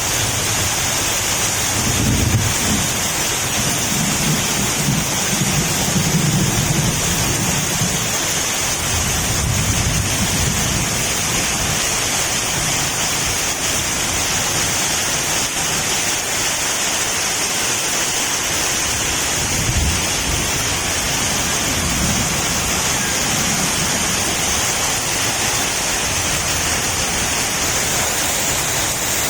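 Heavy rain pouring down steadily, with low rumbles swelling up now and then.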